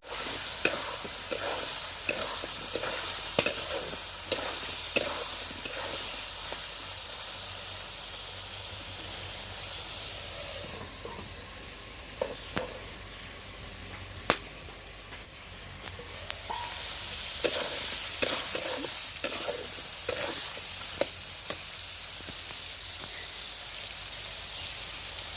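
Food sizzling as it fries in hot oil in a pan, with a spatula stirring and clicking against the pan at intervals. The sizzle grows louder about two-thirds of the way through.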